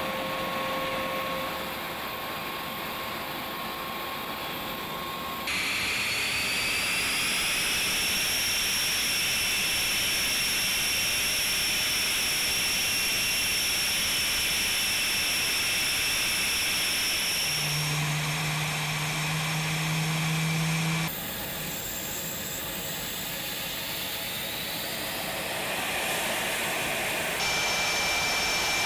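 Military jet engines running on the ground: a turbine whine over steady hiss. The whine rises about six seconds in and then holds steady, and the sound changes abruptly several times.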